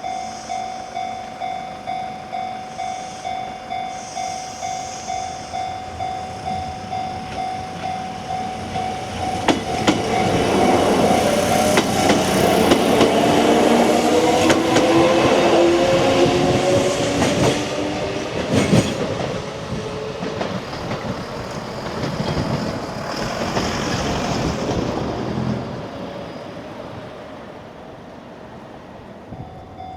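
Japanese level-crossing warning bell ringing, about two and a half strikes a second. From about ten seconds in, a Kintetsu Minami Osaka Line electric train passes over the crossing with wheels clattering and a rising whine, then fades away after about twenty-five seconds.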